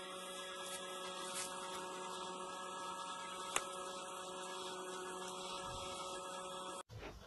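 A steady electrical hum with a hiss and several fixed tones, broken by one sharp click about three and a half seconds in; it cuts off abruptly near the end.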